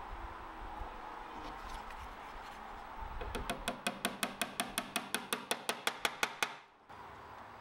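Small hammer tapping a small brass pin into a brass trim strip, about twenty quick, even taps, some six or seven a second, starting about three seconds in and stopping abruptly as the pin sits flush.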